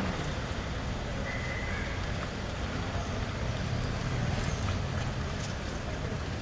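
Steady outdoor street noise, a low rumble of traffic with an even hiss over it.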